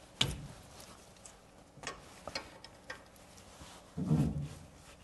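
Light metallic clicks and ticks of a 6 mm Allen key working a cap-head bolt out of a brake disc hub, with a brief low thud about four seconds in.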